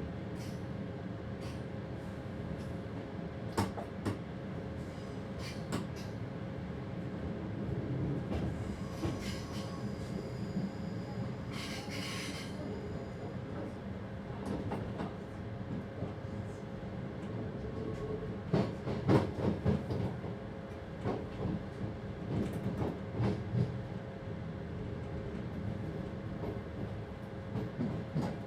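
Passenger train running, heard from inside the driver's cab: a steady rumble and hum, with scattered clicks and knocks from the wheels over rail joints and points. A high squeal comes in about nine to twelve seconds in, and a cluster of louder knocks follows a little past halfway.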